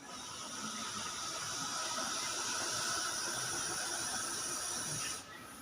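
Russell's viper hissing: one long, steady hiss that grows slightly louder and stops about five seconds in.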